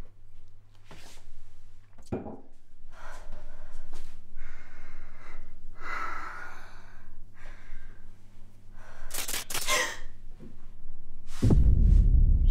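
A woman's heavy, uneven breathing and sighs, a string of separate breaths, as if distressed. About a second before the end a sudden loud, low rumbling hit starts.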